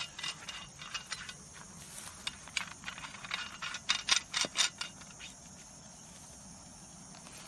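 Metal clicks and rattles from the aluminium handle of a folding camping shovel as the compass end cap is worked open. The irregular clicks come thickest about four seconds in and die away after about five.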